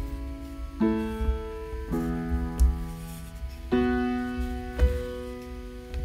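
Background music: soft piano playing slow, sustained chords that change every second or two.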